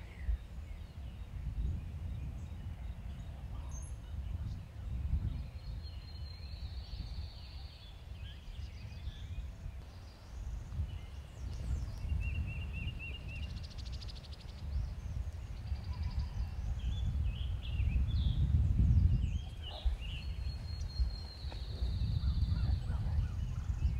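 Wind buffeting the microphone in gusts, strongest a little past the middle, with songbirds calling over it: the same long, high whistled phrase twice and a short rapid trill.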